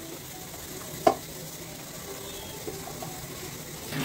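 Hands kneading stiff maida dough in a stainless steel bowl over a steady low hiss, with one sharp knock about a second in.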